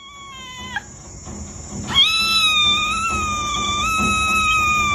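A cat yowling: a short call that falls in pitch at its end, then about a second later one long, steady drawn-out yowl of about three seconds.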